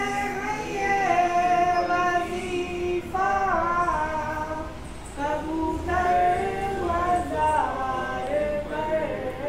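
A high voice singing a slow devotional melody in long held, gliding phrases with short breaks between them, with no audible accompaniment.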